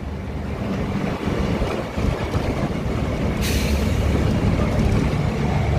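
A loaded truck's diesel engine running at road speed, heard from inside the cab with tyre and road noise, and a short hiss about three and a half seconds in.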